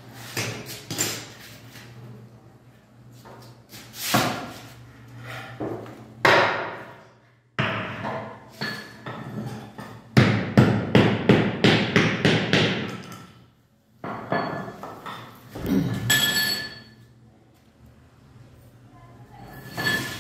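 Hammering: single knocks at first, then a quick, evenly spaced run of about a dozen strikes about halfway through, and another loud blow a few seconds later.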